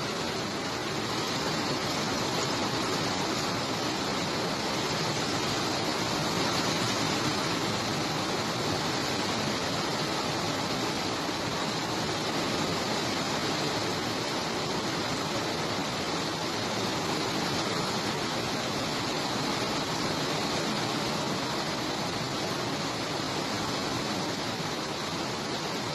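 Steady rainfall, an even hiss of many drops without a break.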